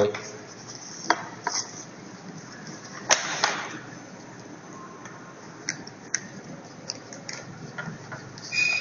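A child car seat's harness buckle and strap fittings being handled: scattered plastic-and-metal clicks and clacks, the loudest about three seconds in, with lighter ticks later on.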